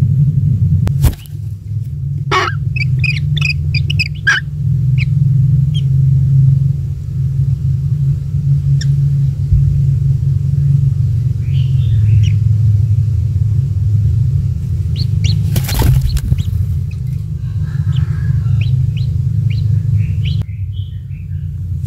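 Short high bird chirps in scattered bursts, from kingfishers at the nest, over a loud steady low rumble. There are two brief knocks, about a second in and near the middle.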